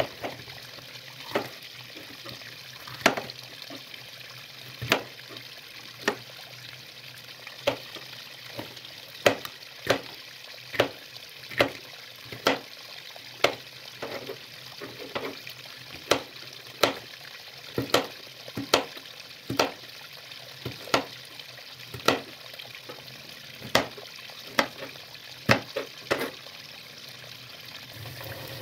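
Kitchen knife slicing a green bell pepper on a plastic cutting board: sharp knocks of the blade striking the board, about one a second, over a steady hiss.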